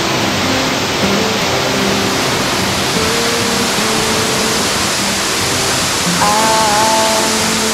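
Steady rush of a large waterfall in heavy flow, with background music laid over it; a higher melody enters about six seconds in.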